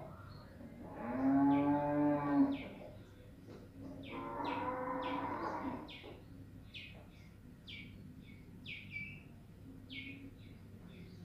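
Two long, steady low animal calls, each about a second and a half, the first the louder, over small birds chirping repeatedly about twice a second.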